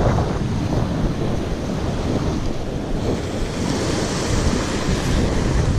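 Sea waves washing and breaking against shore rocks, with wind rumbling on the microphone. The hiss of the surf grows louder past the middle.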